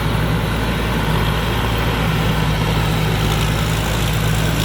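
Combine harvester running steadily at close range, its Hino J08C inline-six diesel engine with a constant low hum under the noise of the machinery.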